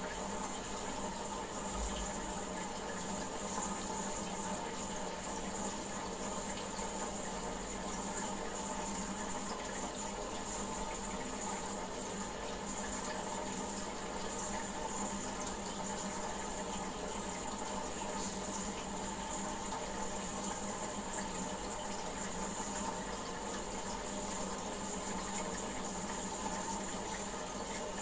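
Water running steadily in a goldfish aquarium.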